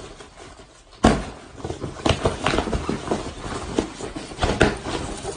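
Scuffling in a room: a rapid, irregular run of thumps and knocks, the loudest about a second in.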